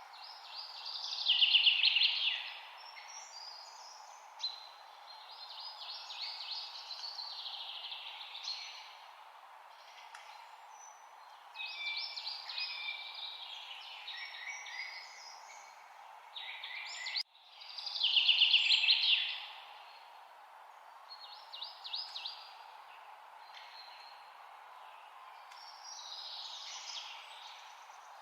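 Songbird singing in repeated phrases of quick, high notes and trills, the loudest phrases about two seconds in and again past the middle, over a steady background hiss of forest ambience.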